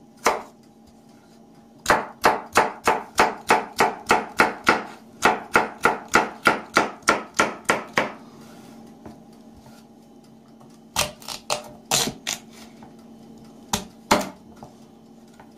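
Chef's knife chopping carrot on a cutting board: a fast run of even chops, about four a second, then a pause and a few scattered chops near the end.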